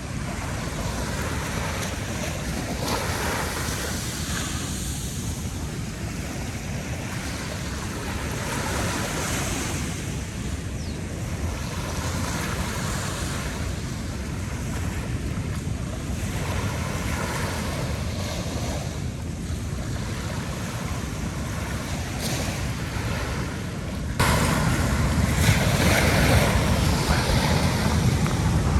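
Ocean surf washing onto a beach, swelling and ebbing every few seconds, with wind buffeting the microphone. The sound jumps abruptly louder about 24 seconds in.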